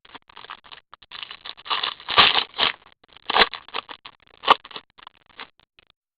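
Card pack wrappers and trading cards crackling and rustling as they are handled, with several sharper crinkles about two, three and a half and four and a half seconds in.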